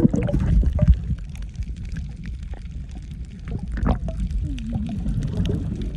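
Water sloshing and gurgling over a steady low rumble, with scattered small knocks and faint voices in the background about two-thirds of the way through.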